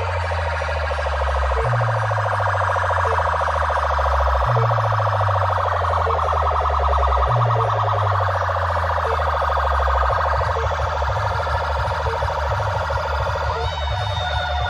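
DJ sound system playing loud dance music with a siren effect. A deep bass line slides down in phrases about every three seconds and turns into rapid, choppy pulses after about ten seconds, under a warbling, siren-like wail.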